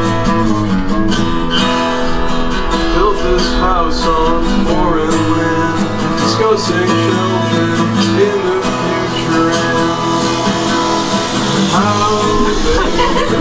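Strummed acoustic guitar playing a song, with a melody line that bends and wavers in pitch over the chords.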